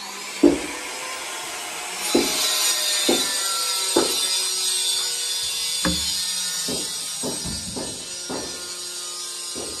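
Background music: sustained notes over a hissy high layer, with irregular low percussive hits that come faster in the second half.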